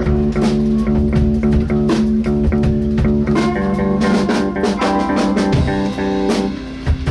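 A band playing live, with guitar and bass notes over a steady drum beat. It drops briefly quieter about six seconds in.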